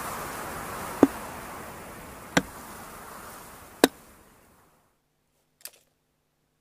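Darts striking a dartboard on a wooden wall: three sharp thuds about a second and a half apart, then a faint fourth near the end, over a film hiss that fades out.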